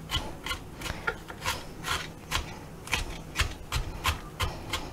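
Chef's knife mincing an onion on a plastic cutting board: quick, even chops at about three a second, with the blade scraping between strokes.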